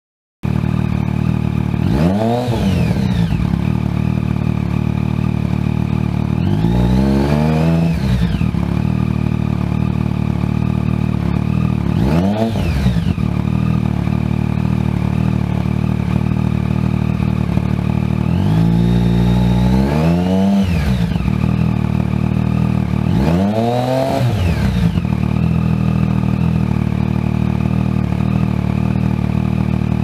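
Yamaha MT-09's inline three-cylinder engine, fitted with an Arrow aftermarket exhaust, idling and revved five times, with short blips and longer revs that each rise in pitch and drop back to idle.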